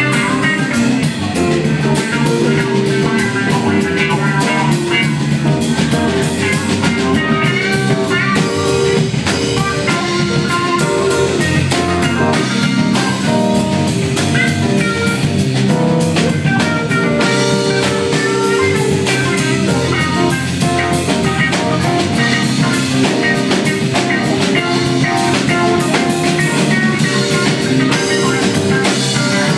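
Live band playing a blues-rock jam with electric guitar and drum kit, loud and continuous.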